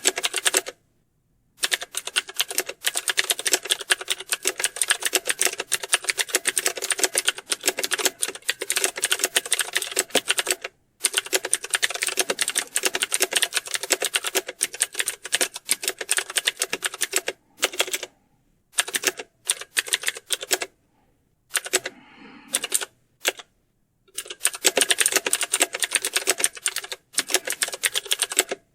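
Fast typing on a computer keyboard: rapid keystroke clicks in runs of several seconds, broken by short pauses.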